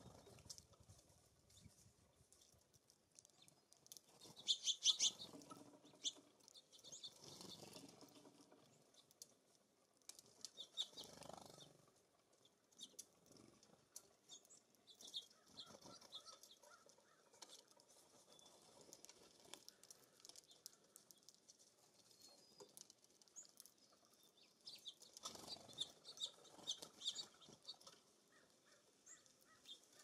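Small songbirds chirping in short clusters of quick high notes, loudest about five seconds in and again near the end, with soft fluttering of wings as birds come and go.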